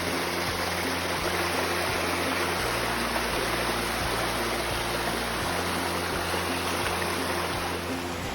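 Waterfall water rushing and splashing: a steady, even roar of falling water.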